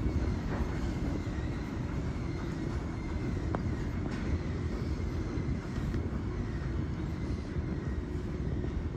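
Steady low rumble of an underground subway station's ambience, with a faint steady high tone and a small click about three and a half seconds in.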